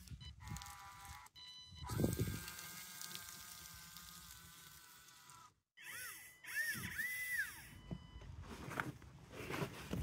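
Electric drive motors and gearing of a 3D-printed RC bulldozer whining as it drives through sand: a steady whine for a few seconds, then the pitch rising and falling several times as the throttle changes, with low crunching from the tracks in the sand.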